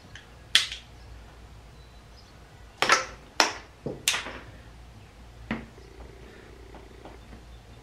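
Hands fitting plastic tubing onto an HHO electrolyzer cell and handling the cell: about half a dozen sharp clicks and knocks, the loudest cluster around three to four seconds in.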